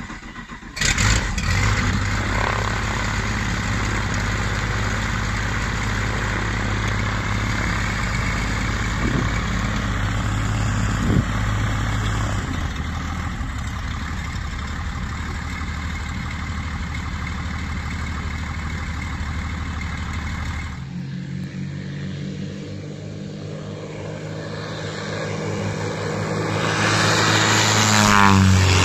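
Tarragon light aircraft's UL Power piston engine and DUC Cobra propeller running steadily as it taxis. From about 21 s in, the engine pulls at takeoff power and grows louder, passing close near the end with a drop in pitch.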